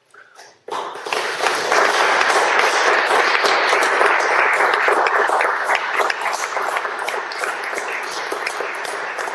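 Audience applause breaks out suddenly under a second in and continues steadily.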